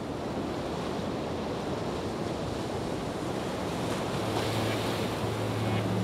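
Steady rushing water noise, slowly growing louder, with a low held musical note coming in about four seconds in.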